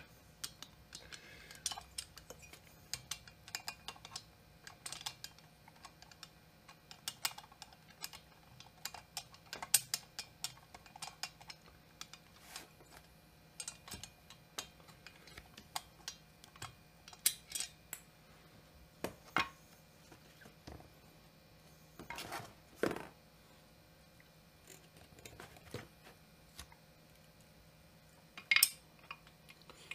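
Scattered light metal clicks, clinks and knocks as a chainsaw cylinder and its mounting bolts are handled and worked into place on the crankcase, at an irregular pace with a few louder knocks.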